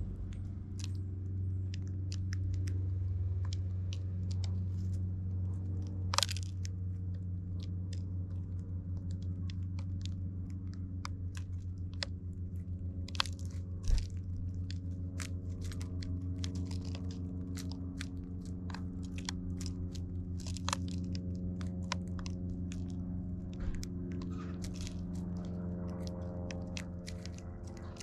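Eurasian tree sparrows pecking at seed in plastic feeding trays: irregular sharp clicks and crunches of beaks striking the tray and cracking seeds. A steady low hum runs underneath.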